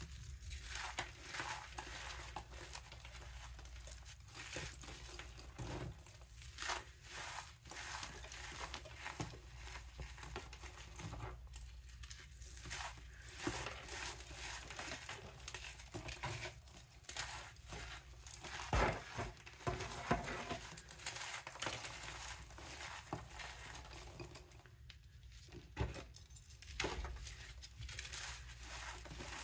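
Hands squeezing and crushing lumps of a baking soda and gym chalk mix, a soft powdery crunch that crackles on and off irregularly. A few sharper, louder crunches come in the second half.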